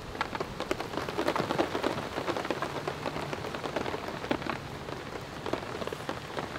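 Steak sizzling and spitting in a hot pan on a small wood-burning firebox stove: a dense, continuous crackle, thickest a second or two after the meat is laid in the pan.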